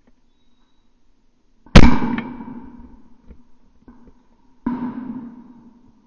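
Two shotgun shots about three seconds apart at a clay shoot, the first much louder, each followed by a short echoing tail.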